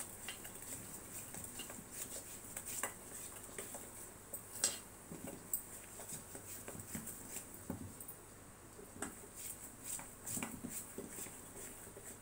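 Spatula stirring thick gram-flour batter in a steel bowl: irregular scrapes and light taps of the spatula against the metal.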